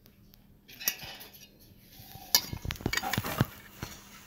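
Chopsticks clicking and knocking against a metal bowl while picking up noodles: a single tap about a second in, then a quick run of clinks and knocks around two to three and a half seconds in.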